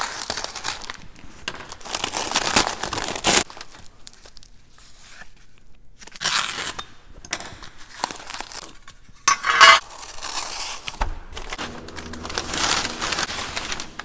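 Kraft-paper and plastic wrapping being torn open and crumpled by hand, in irregular rustling rips, with one louder rip about nine and a half seconds in.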